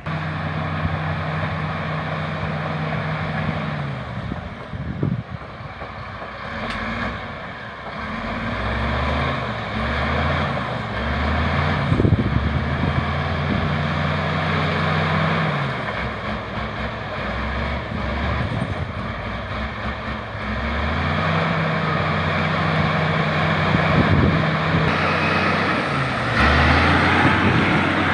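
LiuGong crawler bulldozer's diesel engine working under load, its pitch dropping and rising several times as the load comes and goes. A steady mechanical noise runs over it, with a few brief knocks.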